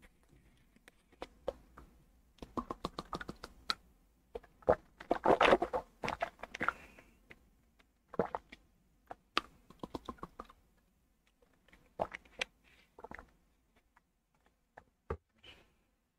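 Light, irregular clicks and taps in short clusters, with near-quiet gaps between them.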